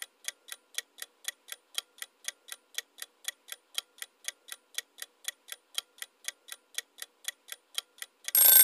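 Countdown-timer sound effect: a clock ticking evenly at about four ticks a second, then near the end a loud bell-like alarm starts ringing to signal that time is up.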